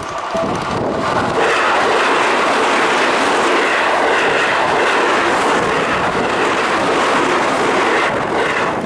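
Seibu Ikebukuro Line electric train passing over a level crossing: a steady rush of wheels on rail that swells about a second and a half in and falls away near the end.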